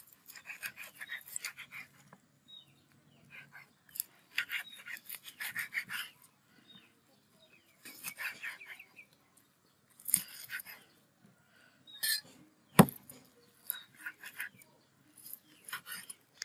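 Kitchen knife slicing through puffed, porous food sheets on a wooden chopping board: groups of rasping cutting strokes every second or two, with one sharp knock of the blade on the board about three-quarters of the way through.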